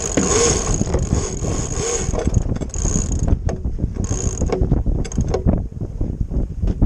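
Sailboat rigging and deck hardware clicking and rattling as the boat sails, many short knocks over a steady low rumble.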